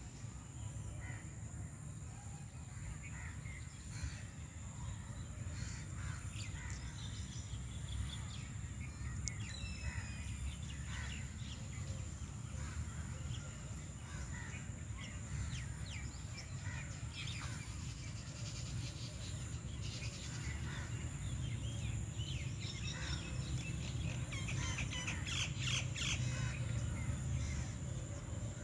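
Scattered short bird calls, busiest shortly before the end, over a steady low rumble.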